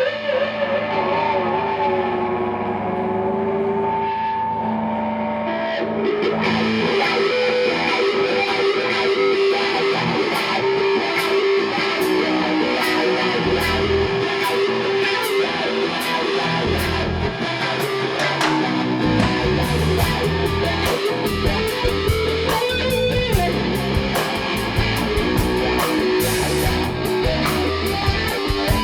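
Live rock trio playing an instrumental intro: effected electric guitar starts alone with sustained notes, cymbal strokes join about six seconds in, and the full band with steady drums and heavy low end comes in about nineteen seconds in.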